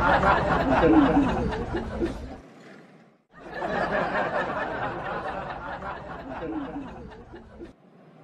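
Canned audience laughter that fades out about two and a half seconds in. After a short silence it comes again and fades out shortly before the end.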